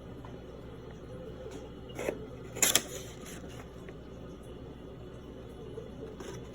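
Packaging handled during an unboxing: two short handling noises about two seconds in, the second louder, over a steady low background hum.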